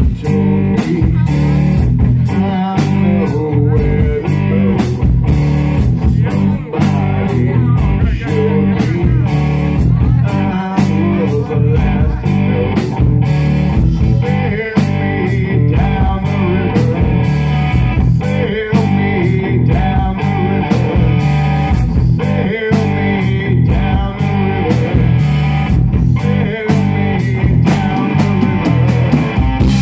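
Live rock band playing loudly, with electric guitars and a drum kit.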